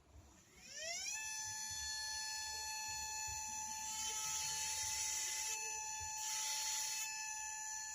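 High-speed electric rotary carving tool spinning up, its whine climbing fast and settling at a steady high pitch about a second in, with three spells of grinding hiss as the bit works the wood.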